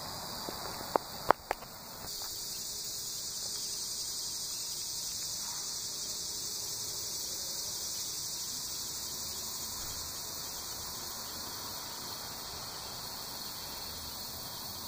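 A steady, high-pitched chorus of insects, with two sharp knocks about a second in.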